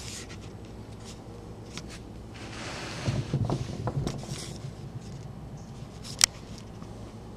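Small handling noises as the parts of a disassembled pin-tumbler lock cylinder are moved about: light clicks and taps, a short rustle about two and a half seconds in, and one sharp click a little after six seconds.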